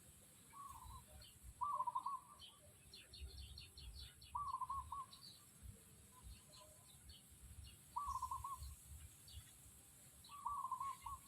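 Bird calls: a short warbling call repeated four times, roughly every three seconds, with fainter high chirps in between.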